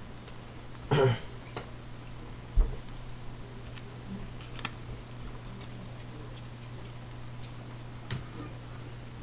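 Sleeved trading cards being handled and set down on a table: a few scattered light clicks and taps of card and plastic, over a steady low hum.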